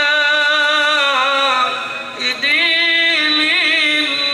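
A solo male voice singing an Islamic devotional chant into a microphone in long, melismatic held notes with wavering ornaments. It breaks off briefly for breath about two seconds in, then resumes on a higher note.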